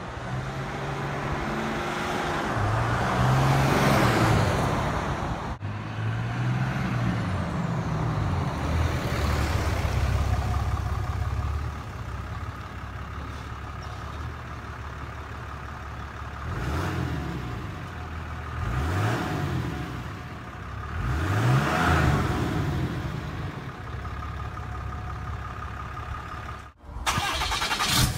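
A Ram 2500's 6.7-litre Cummins turbo-diesel inline-six on its stock exhaust, pulling up under throttle with the engine pitch rising and falling twice. It then idles with a steady low hum and is revved in short blips four or five times. Near the end it cuts to the same engine running through a 4-inch exhaust.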